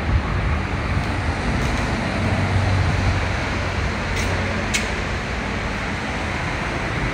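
Steady road-traffic rumble heard inside a tiled pedestrian underpass, with two short, sharp ticks about four and a half seconds in.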